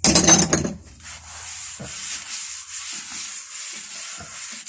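Metal hand tools clattering as they are moved aside for about the first second, then a steady hiss.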